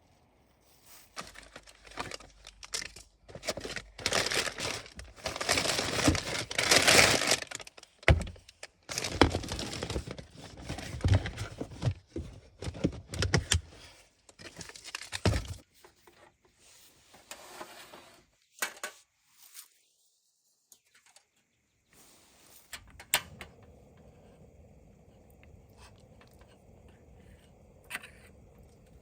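Crinkling and tearing of packaging with small metallic clinks, in dense bursts that die down after about fifteen seconds, leaving a few isolated clicks.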